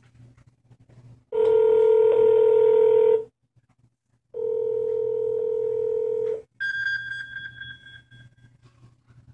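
Ringback tone from a dTEK telephone entry panel's speaker as it places a VoIP call: two long steady rings about a second apart. Near the end a higher, trilling ring sounds briefly, from the mobile phone receiving the call.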